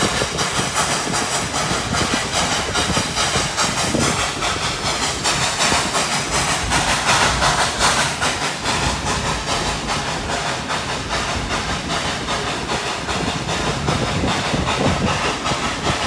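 Steam train running, heard from a passenger car: a steady rush and hiss from the locomotive, with the rumble and rattle of the cars on the track, going on evenly throughout.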